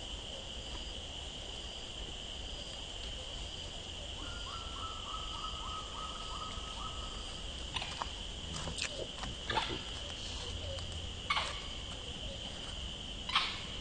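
Steady high-pitched drone of an insect chorus. A run of rapid pulses lasts about three seconds mid-way, and several short sharp sounds come in the second half, the last one the loudest.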